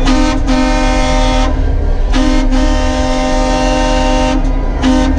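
Truck horns honking in several long blasts with short breaks between, over a steady low engine rumble.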